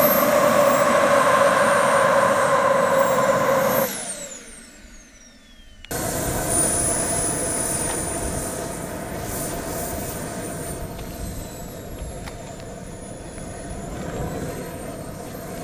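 Turbine engine of a radio-controlled F-16 model jet running with a loud, high whine, then cutting back about four seconds in and spooling down, its whine falling in pitch. After a cut the turbine runs steadily with a high whine as the model taxis, its pitch dipping slightly near the end.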